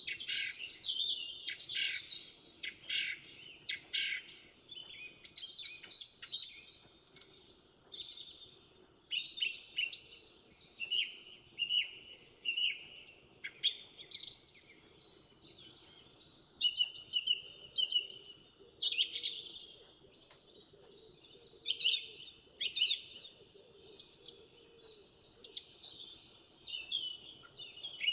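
House finches chirping and singing, a run of quick warbled notes in clusters with short pauses between them.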